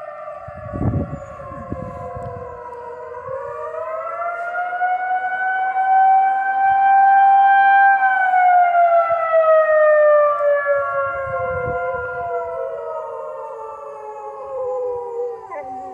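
Outdoor civil defense warning siren wailing on its monthly test: several tones at once, rising slowly to a peak about eight seconds in, then falling away. A Dalmatian howls along with it.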